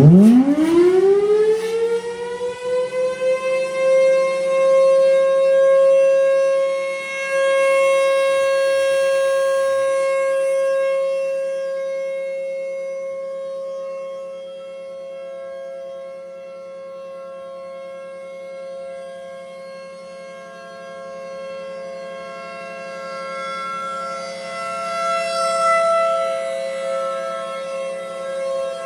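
Federal Signal Thunderbolt 1000B and 2001-130 tornado sirens starting up together for a test. The pitch winds up steeply over the first few seconds to a steady wail, and the loudness swells and fades as the rotating heads turn. A second, higher tone comes in about halfway through.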